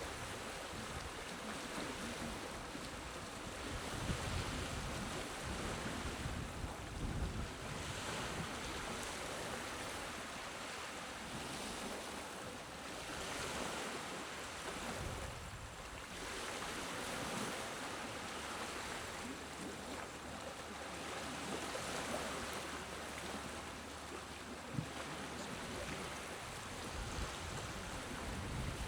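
Small, gentle sea waves washing on a shore, a soft surf hiss that swells and eases every few seconds.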